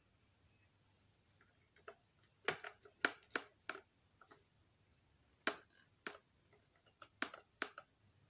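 Sharp, irregular clicks and taps of hand tools and small parts, about nine of them in loose clusters, during hand repair of a rifle stock's butt-pad mount.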